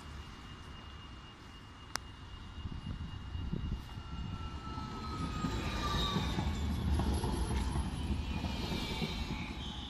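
Alstom Citadis low-floor electric tram approaching and passing close by, its wheels rumbling on the rails and growing louder to a peak about six to nine seconds in, with a whine from its electric drive that falls in pitch. A single sharp click about two seconds in.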